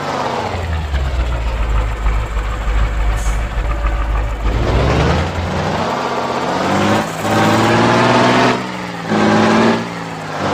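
Truck engine sound for an RC miniature truck: the revs fall to a low rumbling idle, climb again about five seconds in, then the engine revs up and eases off in short pulses near the end.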